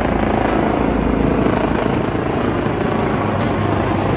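A formation of military helicopters flying overhead, their rotors and engines making a steady, loud noise.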